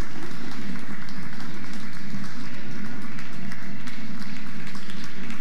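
Audience applause mixed with crowd murmur.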